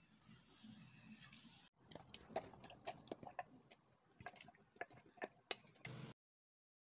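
A silicone spatula spreading moist blended-apple filling over a tart shell in a glass dish: soft wet squishes and small irregular clicks. The sound cuts off suddenly about six seconds in.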